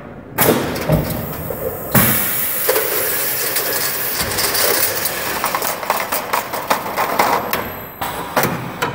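FROMM automatic steel-strapping head feeding a 32 mm (1-1/4") steel strap around a paper-wrapped bundle of steel tubes and drawing it tight. A loud clank about half a second in is followed, from about two seconds, by continuous metallic clatter with many rapid clicks, then a dip and a few more knocks near the end.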